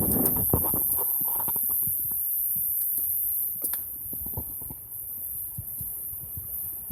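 Wood fire crackling, with irregular sharp pops and snaps that are busiest in the first second or two, over a steady high hiss.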